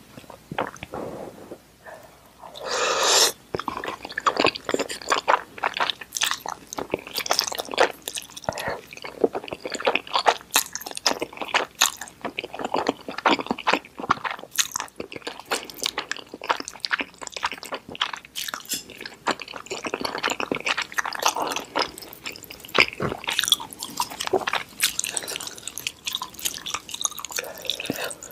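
Close-miked eating of noodles: a loud slurp about three seconds in, then steady wet chewing with many mouth smacks and clicks.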